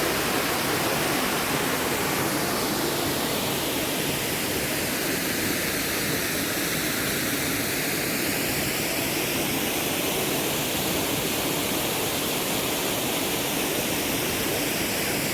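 Waterfall pouring down a rock face: a steady, full rush of falling water, with a slow, drifting swirl in its tone.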